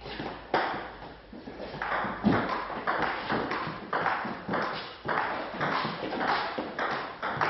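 Table tennis ball clicking off the bats and the table in a rally, about two hits a second. A heavier thud comes a little over two seconds in.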